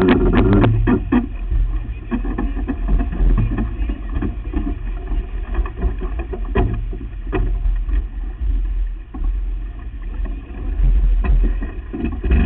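A sailboat under way: a steady low rumble of wind and water. Scattered sharp clicks and knocks of deck gear come through, most plainly around the middle and near the end.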